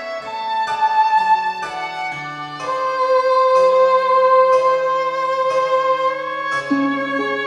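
Background music: a slow instrumental piece with a bowed string melody over plucked string accompaniment, the melody holding one long note through the second half.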